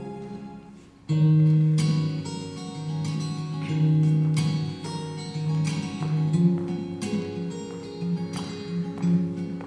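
Background music: one piece fades out, and about a second in a new instrumental piece of plucked string notes begins with a steady run of notes.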